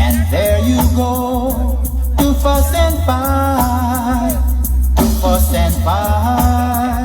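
Reggae music playing loud, with a heavy, steady bass line and a bending melody over it between sung lines.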